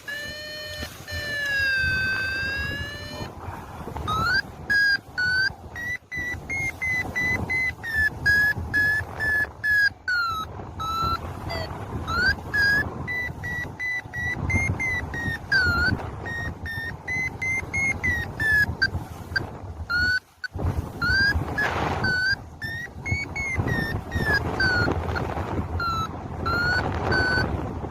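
Paragliding variometer beeping over wind rushing on the microphone: a held, wavering tone in the first few seconds, then a fast train of short beeps that rise and fall in pitch, the climb signal of the glider catching rising air.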